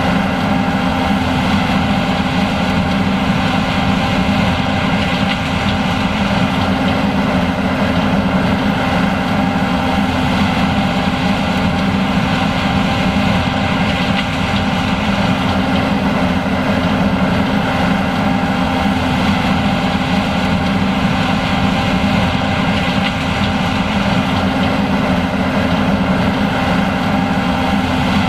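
John Deere S780 combine harvester running steadily, a constant mechanical drone with a few held tones and no change in speed.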